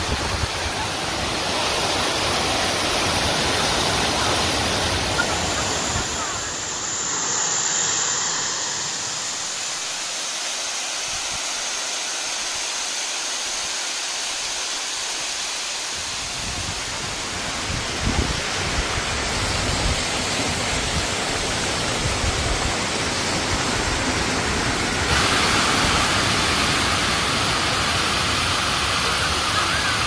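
Tall mountain waterfall cascading down a rock face into a pool: a steady, dense rushing of falling water, its tone shifting a couple of times.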